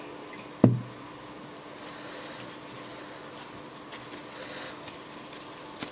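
A sharp knock about half a second in, as the glass bottle is set down on the workbench, then faint rubbing and scratching of a paper tissue wiped over a copper PCB blank with acetone to degrease it.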